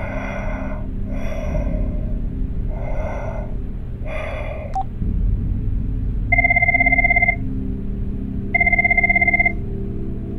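Four heavy, breath-like noises over the phone line, then a sharp click like the call being cut off. A mobile phone then rings twice with a trilling electronic ring, each ring about a second long.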